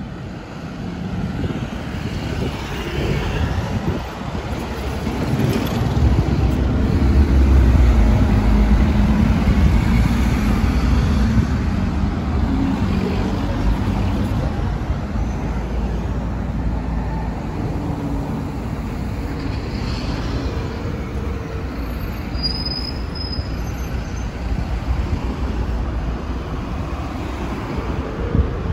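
Steady city road traffic, with cars, motorbikes and buses passing. The low rumble swells loudest about seven to eleven seconds in as a vehicle passes close, then settles to a steady level.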